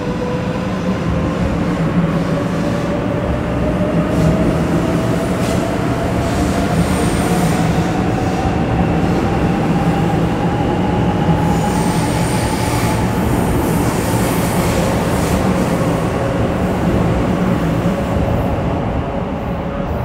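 Shinkansen 500 series train pulling away and gathering speed, its traction motors whining in a tone that climbs steadily as it accelerates, over a dense rolling rumble from the wheels and running gear. A few brief high squeals come in partway through.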